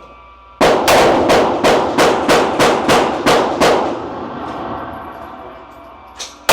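A rapid string of about ten gunshots, roughly three a second, each echoing in an indoor shooting range, with the echo fading afterwards. Another single shot comes at the very end.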